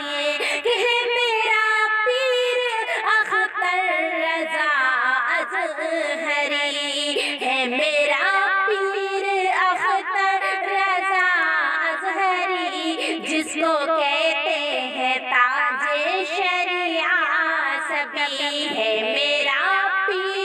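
A woman singing a naat, an Urdu devotional song in praise of the Prophet, in a continuous melodic line with held and ornamented notes.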